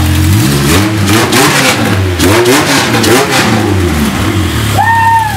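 Honda K20 four-cylinder, just fired up after the swap and running on an open header with no muffler, revved in several quick throttle blips before settling back to idle about four seconds in. A person's voice calls out in one held note near the end.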